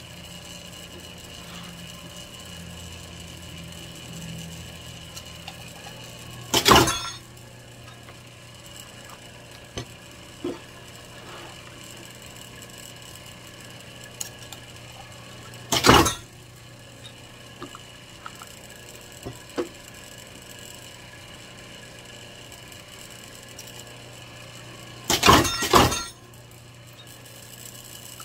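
Hermann Schwabe 20-ton clicker press running with a steady hum, its head coming down to cut leather with a clicker die: a loud short stroke about a quarter of the way in, another midway, and two in quick succession near the end. Small clicks between the strokes come from the die and the swing arm being handled.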